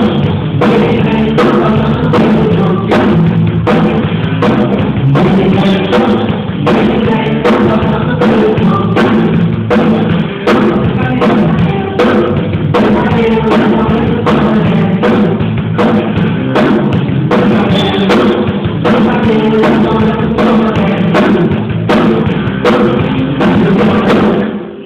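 Worship song played by a band with a drum kit keeping a steady beat.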